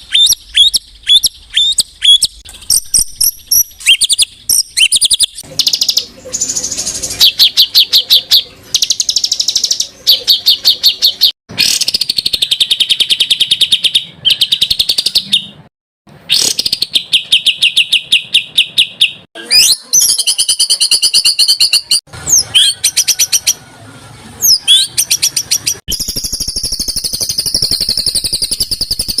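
Recorded songbird calls for training captive birds, several kinds following one another: sharp repeated chips, fast rattling trills and short whistled glides, broken by brief pauses. Near the end comes a steady high buzzing trill.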